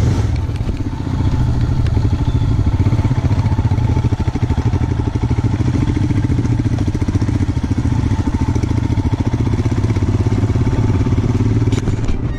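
Royal Enfield Himalayan's single-cylinder engine running steadily, with a fast, even pulse of exhaust beats.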